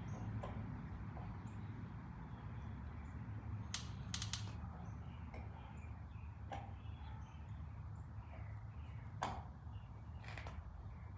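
Scattered sharp clicks and light knocks of a plastic outlet cover plate and its screw being handled and fitted, a quick cluster about four seconds in and single ones near the end, over a steady low hum.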